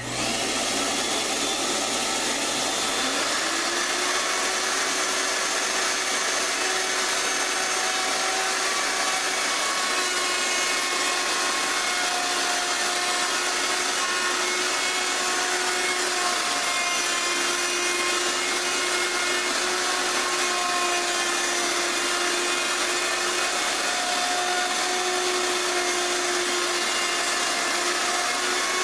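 A router starts up, its high whine climbing to full speed over about three seconds. It then runs steadily while the bit cuts into wood, the pitch dipping slightly now and then under load. A dust collector's rushing noise runs underneath.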